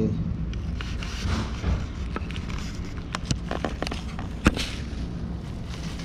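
Scattered plastic clicks and knocks from the cordless vacuum being handled and its dust bin opened to show the dirt collected, with one sharp click about four and a half seconds in, over a steady low hum. The vacuum motor is off.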